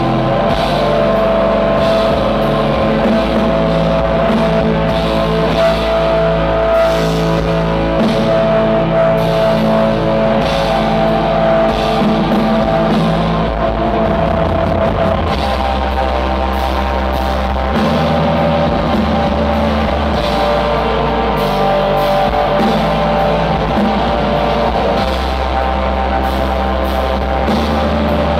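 Black metal band playing live: distorted electric guitars holding sustained chords over drums, loud and unbroken, with the low notes changing about halfway through.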